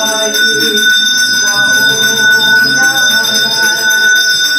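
Temple bell rung continuously during worship, a steady unbroken ringing, with voices chanting underneath.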